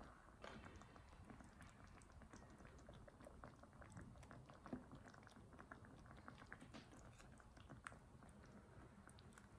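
Faint simmering of a thick red sauce with rice cakes in a saucepan: small bubbles ticking and popping as a silicone spatula stirs. A brief pour from a small carton comes about halfway through.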